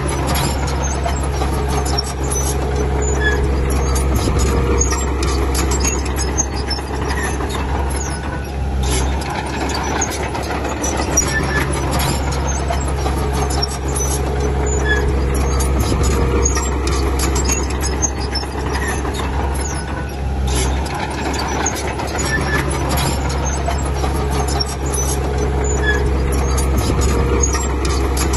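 Diesel engines of heavy earthmoving machinery running steadily under load, the engine note shifting every few seconds as the machine works. Frequent metallic clanks and squeaks run through it.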